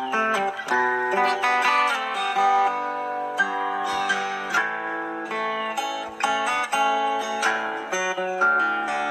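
Solo acoustic guitar played fingerstyle: a melody of plucked notes ringing over bass notes and chords.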